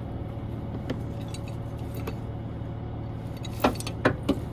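Tow chain with a steel J-hook clinking and rattling as it is worked around a car's control arm: a few faint clinks, then several louder sharp clinks near the end. A steady low engine hum runs underneath.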